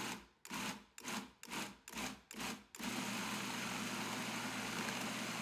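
Countertop food processor blending a thick tofu-and-chocolate pie filling: about six short bursts of the blade in the first three seconds, then it runs steadily with a low motor hum.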